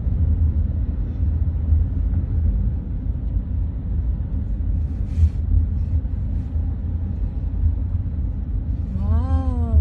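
Steady low rumble of wind buffeting the microphone. Near the end comes one short tone that rises and then falls.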